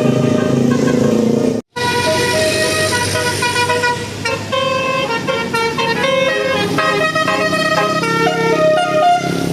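A bus's Basuri multi-tone "telolet" horn playing a tune: several horn tones sounding together, stepping to new notes every half second or so, over the bus's engine. The sound cuts out abruptly for a moment just under two seconds in, then the tune carries on.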